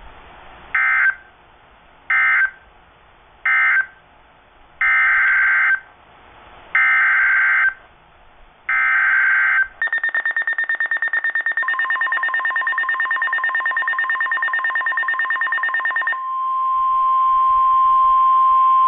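NOAA weather radio Emergency Alert System data tones: three short screeching bursts, the end-of-message code, then three longer bursts, the SAME header of a new flood warning. After that the weather radio's rapidly pulsing alarm beep starts, and the steady 1050 Hz weather radio alert tone comes in under it and sounds alone for the last few seconds.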